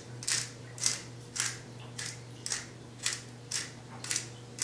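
Hand-twisted pepper mill grinding peppercorns: a regular, crunchy grating about twice a second, one stroke per twist.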